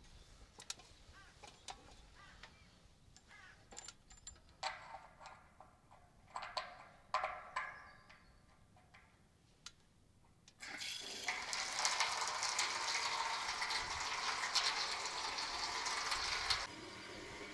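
Water rushing through a hose fitting into a steel buffer tank as it is rinsed out. Scattered clicks and short splashes at first, then about ten seconds in a steady loud gush that runs for some six seconds before easing near the end.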